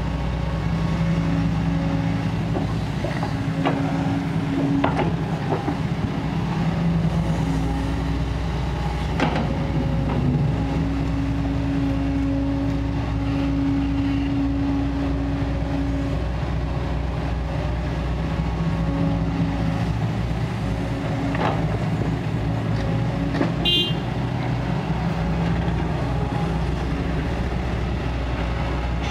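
Kobelco SK140 excavator's diesel engine running under load, with a steady drone and a pitched hydraulic whine that comes and goes as the machine works. A few sharp knocks sound through it.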